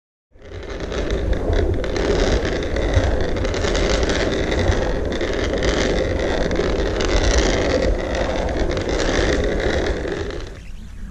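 Wind buffeting an action camera's microphone over a deep rumble of board wheels rolling fast on asphalt. It starts suddenly and drops off sharply shortly before the end.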